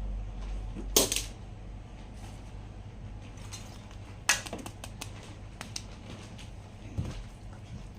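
Plastic toys and packaging being handled: scattered clicks and knocks, the loudest about a second in and another about four seconds in, over a low steady hum.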